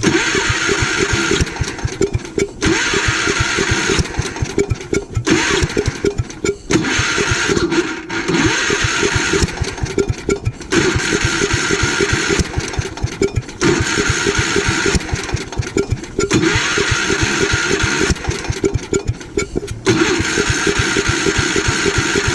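Gravely Commercial 12's engine being cranked over again and again in bursts, sputtering but not staying running: a fuel problem, which the owner takes for fuel starvation.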